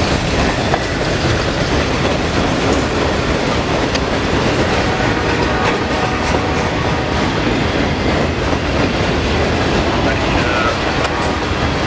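A train passing close by, its cars running steadily with the wheels clicking over the rail joints.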